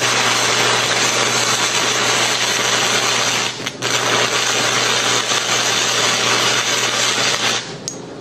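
Stick-welding arc from a Hobart 3/32-inch cutting and chamfering electrode at 160 amps, cutting 14-gauge sheet steel: a loud, steady crackling hiss that dips for a moment a little past halfway and stops near the end as the arc goes out.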